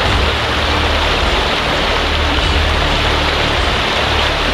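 Mountain stream pouring over a small rock ledge into a pool: a steady, even rush of water with a low rumble underneath.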